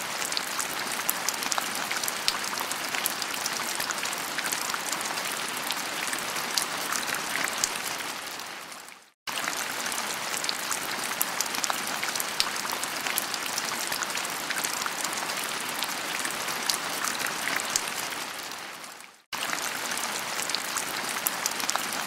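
Steady rain falling on leaves: an even hiss dotted with many small drop ticks. It fades out and abruptly starts again twice, about nine and nineteen seconds in.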